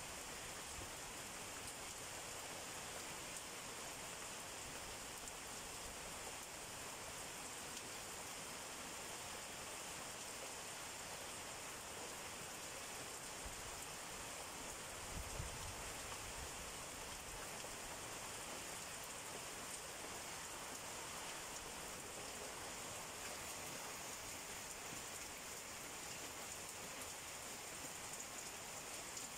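Steady heavy rain falling on banana leaves and trees, an even hiss throughout, with one brief low thump about halfway through.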